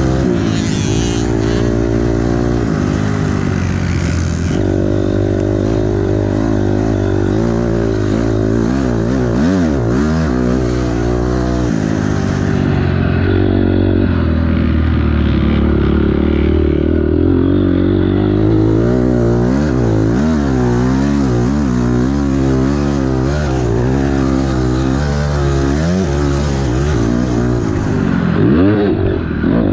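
2006 Honda CRF250R single-cylinder four-stroke dirt bike engine, heard from on board while being ridden hard around a motocross track. Its pitch keeps climbing and dropping as the rider opens and rolls off the throttle and shifts gears.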